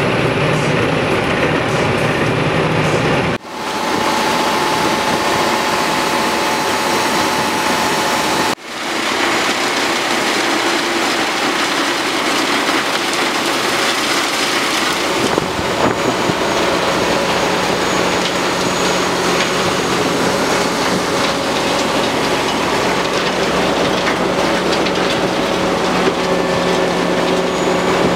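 Tractor-driven Heizohack wood chipper running flat out, chipping branches and blowing wood chips out of its discharge chute. It is a loud, dense, steady mechanical noise that drops out sharply twice, about three and a half and eight and a half seconds in.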